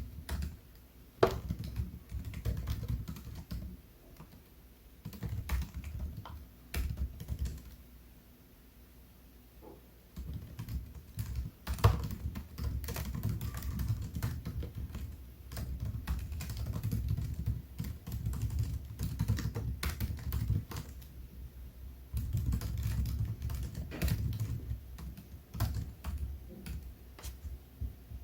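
Typing on a MacBook Air laptop keyboard, keys clicking in quick runs broken by a few short pauses.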